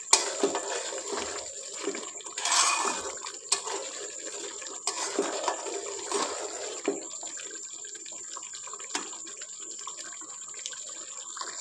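Thick chicken curry gravy bubbling and sizzling in a pot, oil starting to separate at the sides, while a spoon stirs it, with scattered clicks of the spoon against the pot.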